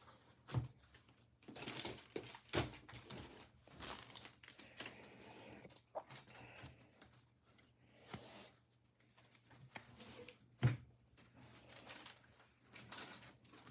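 Faint handling of trading cards and their packaging: rustling and crinkling of wrappers with scattered light taps and knocks on the table, the loudest knock about ten and a half seconds in.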